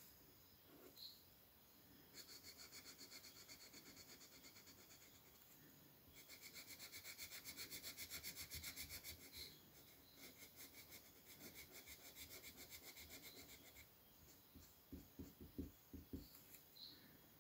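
Faint sound of a felt-tip marker scrubbing back and forth on paper as it colours in an area, quick strokes at several a second in three long spells with short pauses between them. Near the end come a few slower, separate strokes.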